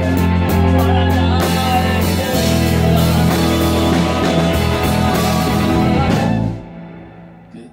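Rock band playing live and loud: drum kit, electric bass, electric guitar and keyboard. About six and a half seconds in, the band stops together and the sound dies away.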